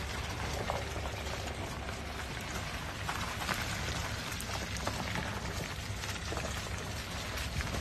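Isuzu MU-X SUV crawling slowly up a wet, muddy dirt track: a steady low engine hum under a continuous wet crackling hiss, like rain, from the tyres on the mud and gravel.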